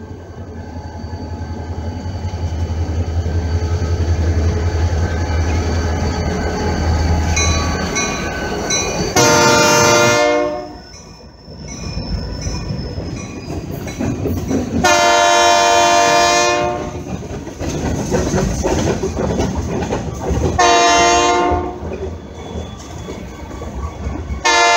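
Diesel freight train passing: the locomotive's air horn sounds four blasts of several tones at once, the last one still going at the end, over the rumble and rolling clatter of the train. The rumble builds during the first few seconds as the locomotive approaches.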